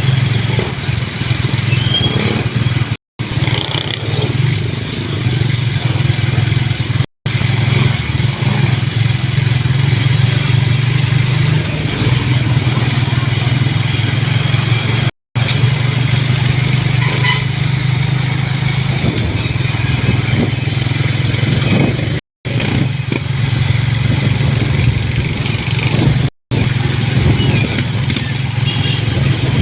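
A motor vehicle's engine and road noise running steadily while travelling along a road, with a steady low hum. The sound cuts out to silence briefly five times.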